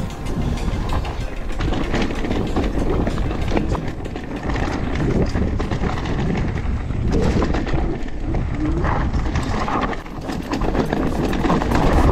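Mountain bike clattering and rattling as it rides down a rough, sandy dirt trail: a dense run of knocks and clicks from the bike over a steady rush of tyre and ground noise.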